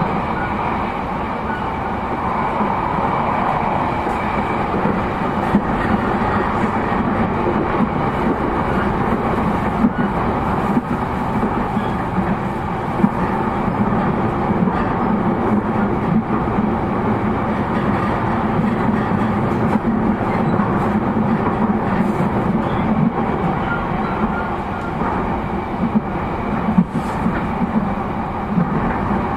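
JR East E233-0 series electric train running at steady speed, heard from inside the passenger car: a steady running noise of wheels and running gear, with a few sharp clicks as the wheels pass rail joints.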